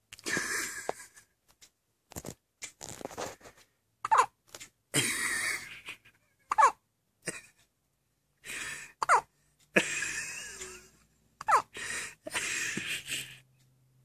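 A baby hiccuping: four short, sharp, high-pitched hics, about one every two and a half seconds, with softer hissing sounds between them.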